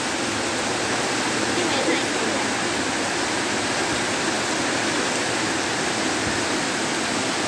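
Heavy rain falling in a downpour, a steady, unbroken hiss.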